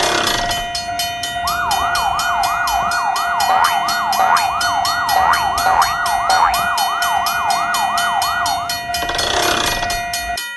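Railway level-crossing warning bell ringing rapidly and steadily. A siren-like sweep, repeating about three times a second, is layered over it from about a second and a half in until near the end.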